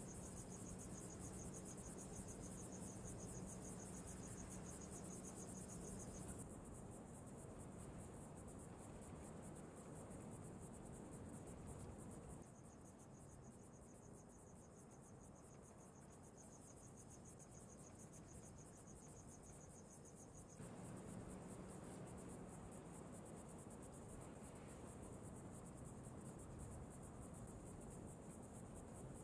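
Faint high-pitched insect chirring, like crickets, in quiet open-air ambience. It weakens about six seconds in and comes back strongly in the last third.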